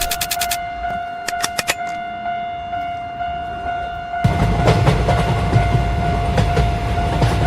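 Train passing: a loud low rumble with rapid wheel clicks sets in suddenly about four seconds in. A steady high tone runs under it throughout, and a few sharp clicks come in the first two seconds.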